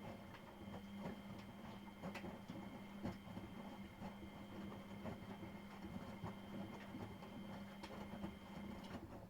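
Miele Professional WS5436 washing machine drum turning during the wash. A steady motor hum with a higher whine runs under irregular knocks and clicks from the tumbling laundry, then stops abruptly near the end as the drum pauses.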